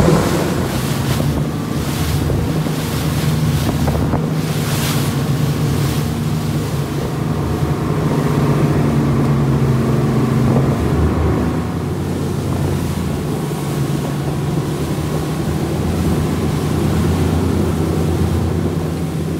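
Boat engine running steadily at speed, a low even drone, with water rushing in the wake and wind buffeting the microphone.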